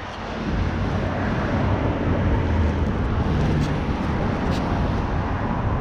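Steady rushing noise of an electric scooter being ridden in the rain, with wind and wet-road rumble on the microphone and a few faint ticks.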